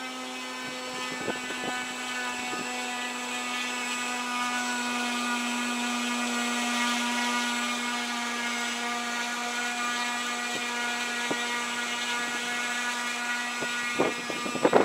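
RC glider's electric motor spinning an Aeronaut CAM Carbon 10x7 propeller at full throttle in a static ground run: a steady, even whine with a hum underneath, a little louder around the middle. The motor cuts off near the end, followed by rough, uneven noise.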